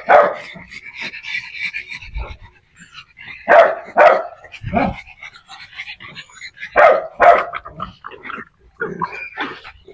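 Small dogs, pugs and dachshund-type dogs, barking while they wrestle in play: a loud bark at the start, then two pairs of sharp barks about half a second apart, with softer yaps between.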